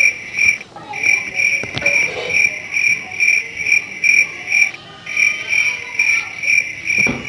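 Cricket chirping: a high, even trill pulsing about three times a second, breaking off briefly about three-quarters of a second in and again near five seconds. A faint knock sounds under it a little before two seconds in.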